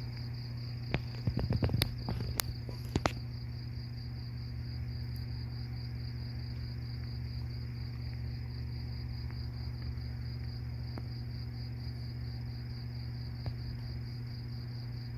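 Crickets chirping in a steady, fast-pulsing trill, over a low steady hum, with a few sharp clicks about one to three seconds in.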